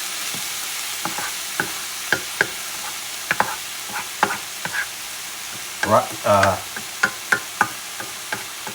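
Cauliflower rice sizzling as it stir-fries in oil in a pan, with a utensil clicking and scraping against the pan at irregular moments.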